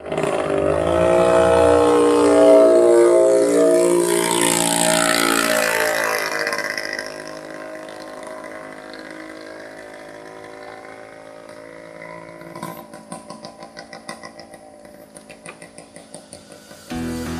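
A motor engine, loud for the first several seconds, then running more quietly, with a quick pulsing beat of about four a second near the end.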